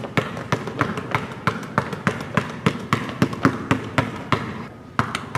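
A basketball being dribbled rapidly on a hardwood gym floor: quick, sharp bounces several times a second, with a brief pause near the end before the bouncing resumes.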